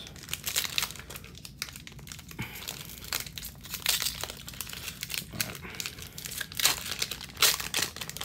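Foil wrapper of a Panini NBA Hoops 2020-21 trading-card pack crinkling in the hands as it is torn open, a run of irregular crackles.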